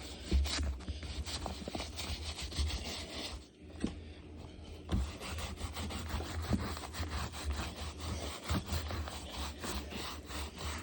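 Stiff brush scrubbing a leather baseball glove with water in rapid back-and-forth strokes, with a brief pause about three and a half seconds in.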